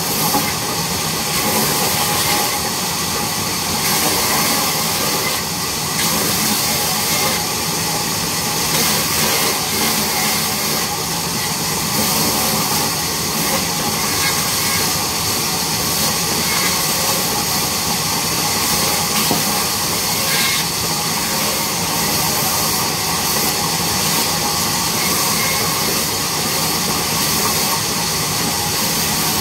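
Large vertical band saw running and cutting through timber: a steady, loud hiss and whine of the blade and motor that does not let up.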